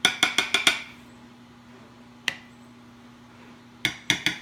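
A spoon tapping quickly against a dish while dabbing chimichurri sauce around the plate, making light ringing clinks: a quick run of about six, a single tap about two seconds in, and another quick run near the end.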